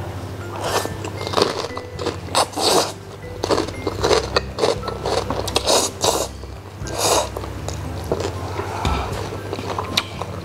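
Close-miked slurping of instant noodles and mouth-eating noises, a run of short slurps from about half a second in until about seven seconds in, over soft background music.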